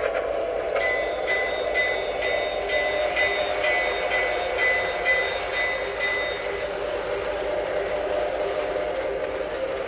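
Lionel O-scale diesel locomotive's onboard sound system playing a steady diesel engine rumble, with its bell ringing about twice a second until it stops about six and a half seconds in.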